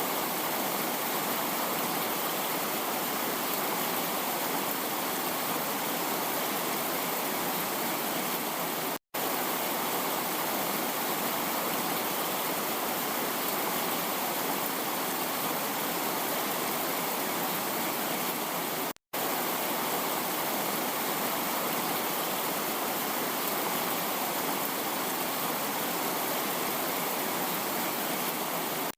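Heavy rain: a steady, dense hiss of downpour. It drops out to silence for an instant twice, about nine and nineteen seconds in.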